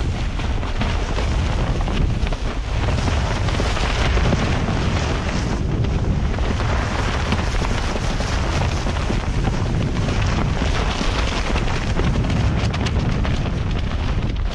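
Strong wind buffeting the microphone over the rush of waves along the hull, with the deflated spinnaker flogging and flapping close by as it is hauled down in a blow.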